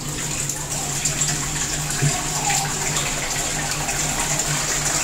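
Water running steadily from a hose pipe into an empty glass aquarium, filling the tank.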